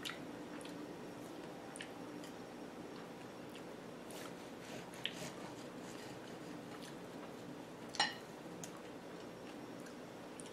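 Knife cutting through a chocolate-covered strawberry on a plate: scattered soft clicks and taps as the blade cracks the chocolate shell and touches the plate, with one sharper click about eight seconds in, over a low steady hum.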